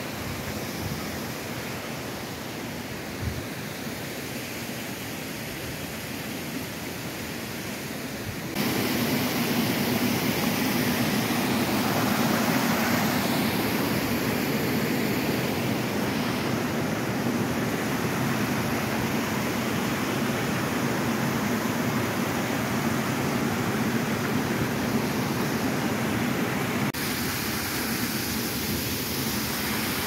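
Steady rush of the Triberg waterfalls, water cascading over rocks. It becomes suddenly louder about eight seconds in and eases slightly a few seconds before the end.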